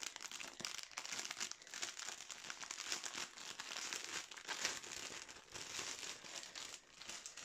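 Clear plastic bags of diamond-painting drills crinkling and rustling as they are handled and pulled from the kit, in an irregular run of crackles.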